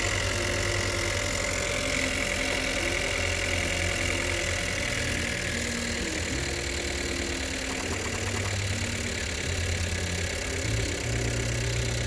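2018 Chevrolet Cruze's 1.4-litre turbocharged four-cylinder idling steadily with a misfire: the cylinder 1 fuel injector is not firing.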